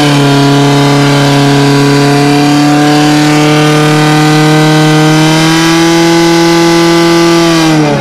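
Fire-sport portable fire pump's engine held at full revs, a loud steady drone, as it drives water through the hoses to the targets. Near the end it is throttled back and the pitch drops quickly.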